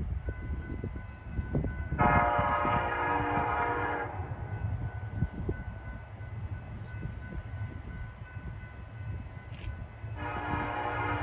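Approaching freight train's diesel locomotive air horn, a chord of several tones, sounding two long blasts of about two seconds each, the second starting near the end. Low wind rumble on the microphone in between.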